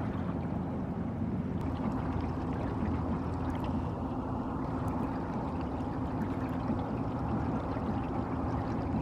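Outboard boat motor running steadily, with water rushing and splashing against the hull.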